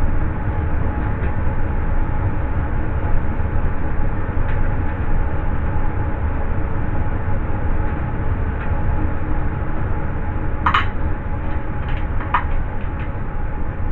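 Steady low rumbling background noise with a faint hum, and a couple of sharp metallic clinks near the end as a power supply is screwed into a metal computer case.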